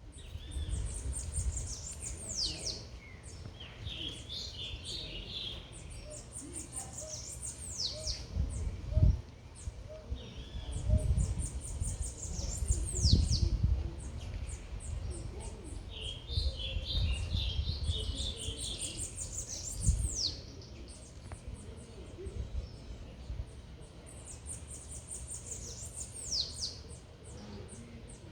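A songbird singing, repeating the same phrase every six or seven seconds: a quick run of very high notes ending in a steep downward sweep, with separate bursts of chirping in between. A low, uneven rumble runs underneath and swells several times.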